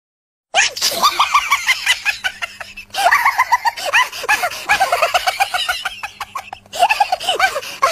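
A rapid run of short squawking animal calls, several a second. It starts about half a second in, after silence, and breaks off abruptly twice.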